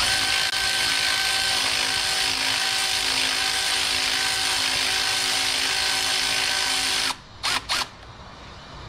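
Cordless electric ratchet running steadily for about seven seconds, driving in a bolt on a newly fitted alternator. It cuts off suddenly, then gives two short blips as the bolt is nipped up.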